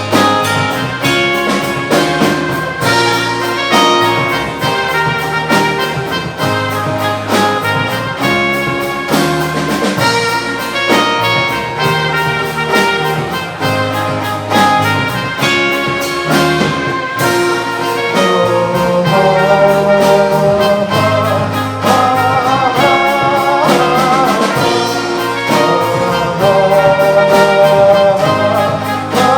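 Live band playing an instrumental passage with brass over a steady beat; a melody with vibrato comes in past the middle.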